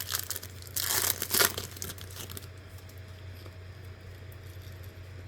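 Foil wrapper of a Topps Chrome card pack crinkling and tearing as the pack is opened, in a flurry of rustles loudest about a second in that stops after about two and a half seconds. A low steady hum runs underneath.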